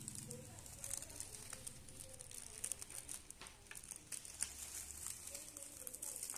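Plastic wrapping crinkling and rustling as it is handled, with many small irregular crackles.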